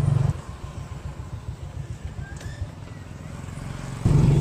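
Street traffic of motorbikes and cars heard while moving along a city street, a low rumble. It drops sharply in level just after the start and comes back loud near the end.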